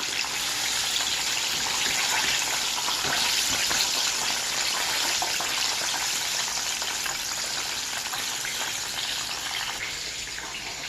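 Cornstarch-battered chicken legs and thighs deep-frying in hot oil in a deep frying pan: a dense, steady sizzle, a little louder a few seconds in and easing slightly toward the end.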